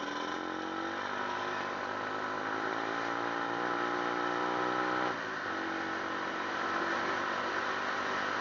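Vehicle engine under way, its pitch climbing steadily as it accelerates, then dropping sharply about five seconds in at a gear change before climbing again.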